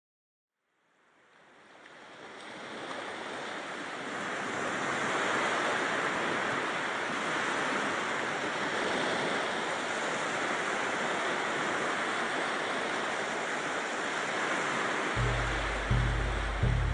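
A steady rushing, surf-like noise fades in over the first few seconds and holds. Near the end, deep drum beats start at a slow, even pace as the soundtrack music begins.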